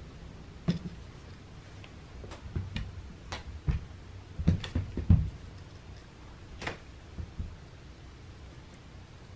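Scattered soft thumps and light taps of a cat pouncing on and batting at a feather wand toy on a carpeted floor. They bunch together in the middle, the loudest a little past halfway, with a few more after.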